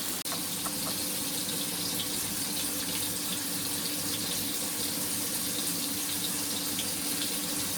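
Chicken breast steaks sizzling in a frying pan: a steady hiss with scattered faint crackles, over a low steady hum.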